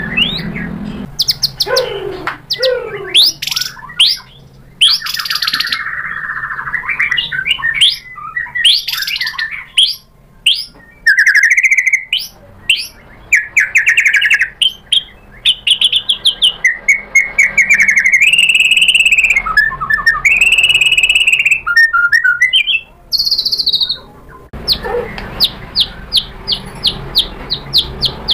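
White-rumped shama singing loudly: a changing string of clear whistles, sweeping notes and trills. Near the end comes a fast run of short repeated notes.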